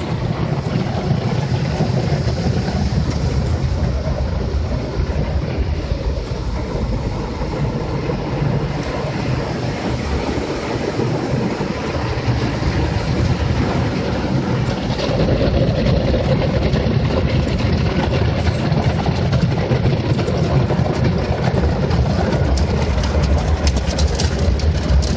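Automatic car wash machinery running, heard from inside the car's closed cabin: a loud, steady rush that grows louder about fifteen seconds in.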